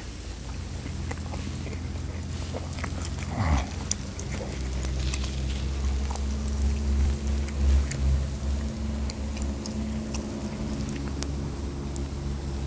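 A steady low engine-like drone runs under light clicks and crackles as wooden chopsticks work noodles on a hot griddle and tap a metal bowl. There is chewing near the start.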